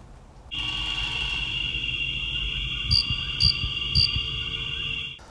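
Intro sound effect for an animated logo card: a steady high cricket-like trill that starts and cuts off abruptly, with three short sharp clicks about half a second apart near the middle.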